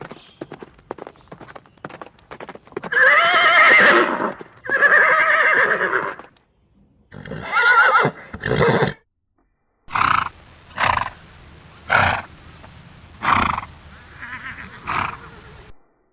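Horse neighing: two long wavering whinnies, two shorter ones, then a run of short neighs about one a second. Quick hoof clip-clops at the start.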